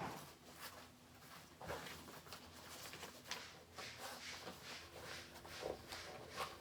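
A string of soft clicks, taps and rustles from objects being handled, faint and irregular, with a sharper click at the very start.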